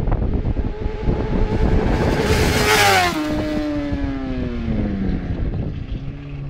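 Honda CBR1000RR sportbike's inline-four engine running at high revs as it rides past close by. Its pitch drops sharply as it passes about three seconds in, then keeps falling as the bike pulls away.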